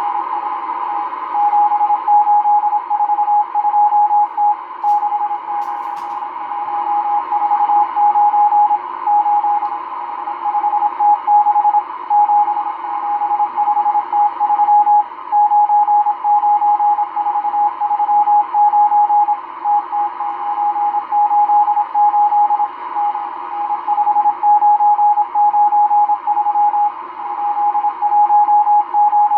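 Realistic DX-394 shortwave receiver playing the M12 numbers station's Morse code: a single beep tone keyed on and off in quick dots and dashes, sending number groups over a steady bed of static hiss.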